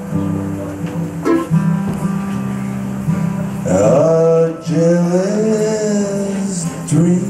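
Acoustic guitar picked in a repeating low figure, with a melodic line that slides and bends in pitch entering about four seconds in and fading by near the end.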